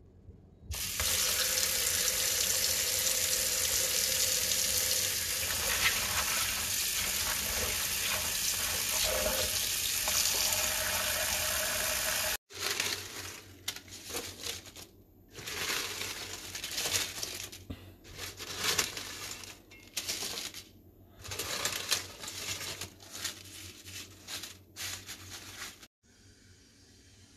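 Tap water running steadily into a bowl of bay leaves in a steel sink. After a cut about twelve seconds in, fresh bay leaves rustling in irregular bursts as they are handled and spread out by hand.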